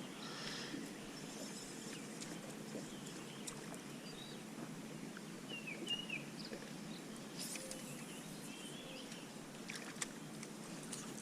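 Quiet outdoor ambience: a faint steady hiss with a few short bird chirps about six seconds and nine seconds in, and scattered light clicks.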